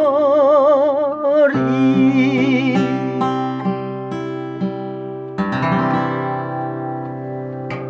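The end of a song on acoustic guitar. For about the first second and a half a long wavering note is held over the guitar chord. Then single guitar notes are picked, and a final strummed chord about five seconds in rings out and slowly fades.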